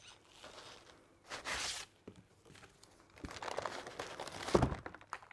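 Cardboard box being opened, its packaging rustling and tearing in short noisy bursts, with a soft thump near the end.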